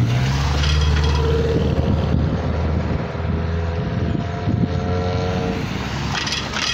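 Cars driving past close by, their engines giving a steady low hum that eases off about five and a half seconds in.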